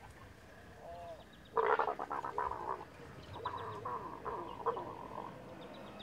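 Leopards growling during mating: a sudden loud, rasping growl starting about one and a half seconds in, then a second, weaker growl that ends a little after five seconds.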